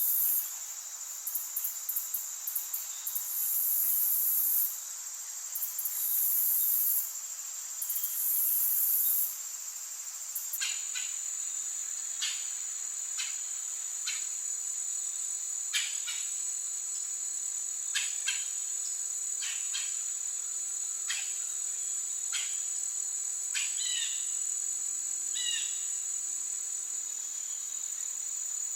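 Forest insects trilling steadily at a high pitch, with loud on-off bursts of higher buzzing during the first ten seconds. After that, short sharp bird chip notes come every second or two, with a few slurred notes near the end.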